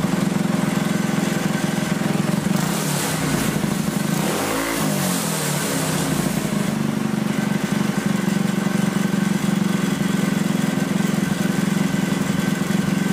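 Modified Predator single-cylinder four-stroke engine running steadily just after a restart. Its note briefly shifts and turns hissier about four to five seconds in, then settles again.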